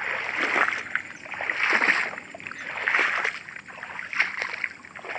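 Footsteps wading through shallow floodwater and wet grass, a splashing swish with each stride, about one a second.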